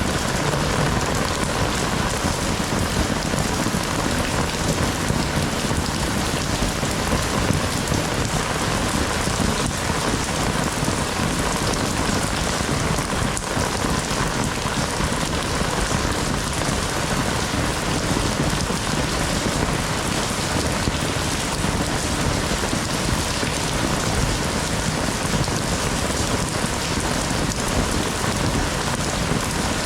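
Heavy rain falling steadily, a dense, even hiss of drops on surfaces with no letup.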